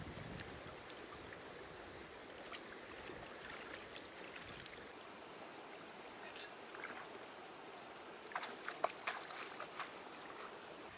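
Shallow rocky stream running, with water splashing around working hands. A cluster of sharp clicks and knocks comes near the end.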